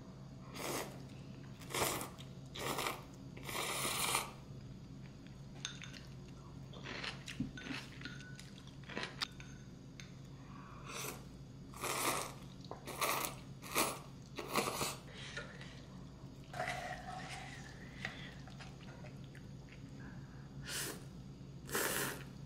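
Irregular short crunching and scraping sounds, about fifteen, one a little longer about four seconds in, over a low steady hum.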